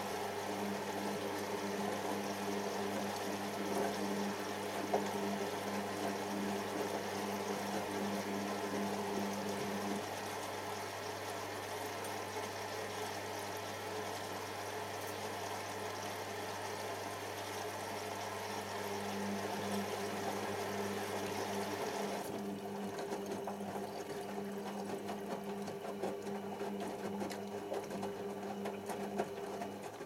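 Hoover Optima OPH714D front-loading washing machine tumbling a wet load of towels in its rinse: a steady motor hum with water sloshing in the drum. The whole sound cuts off suddenly at the end as the drum stops turning.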